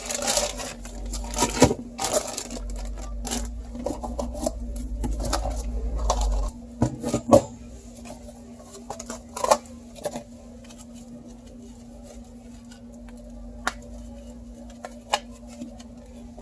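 Computer parts and their packaging being handled on a workbench: scattered clicks, taps and knocks, busier in the first several seconds, over a steady low hum.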